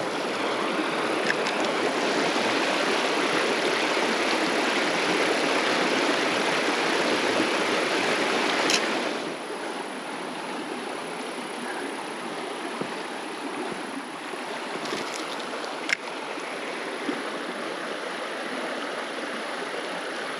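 Small shallow creek running, a steady rush of water that drops to a quieter level about nine seconds in. Two brief sharp clicks stand out, one at the drop and one a few seconds before the end.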